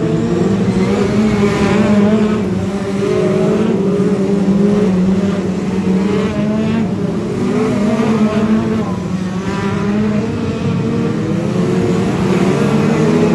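Several BriSCA F2 stock car engines racing together, their pitch repeatedly rising and falling as the cars accelerate and back off.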